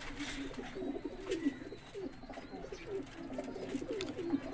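Several domestic pigeons cooing, their low, wavering coos overlapping one another, with a couple of faint clicks.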